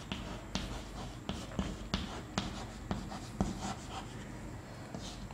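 Chalk writing on a chalkboard: a string of sharp, irregular taps and short scratches as the words are written out.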